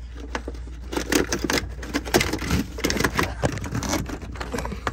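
Air filter element being worked out of a Club Car DS golf cart's plastic air box by hand: irregular scrapes, clicks and knocks of plastic and filter against the housing, over a steady low hum.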